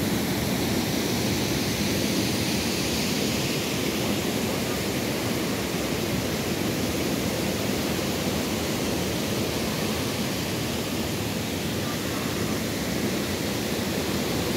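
Steady rushing of a waterfall and fast-flowing river water, an even unbroken hiss.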